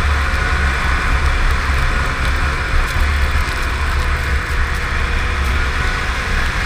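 Polaris snowmobile running steadily at trail speed, its engine and track noise mixed with heavy wind buffeting on the microphone.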